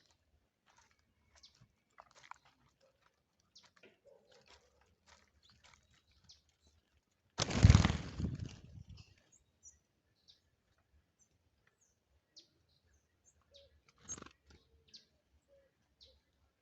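Birds at a feeding spot: scattered short chirps and small ticks. About seven seconds in comes a loud rushing burst lasting a second or so, and a smaller one near the end.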